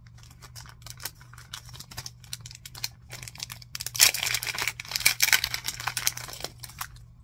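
Thin plastic packaging crinkling and crackling in the hands as a small bag is opened, growing much louder and busier about four seconds in, then stopping just before the end.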